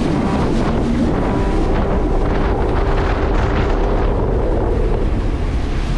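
Taiga Orca Carbon electric jet ski under way at speed: wind buffeting the microphone and water rushing past the hull, with a faint steady whine from the electric drive that steps up in pitch about a second in.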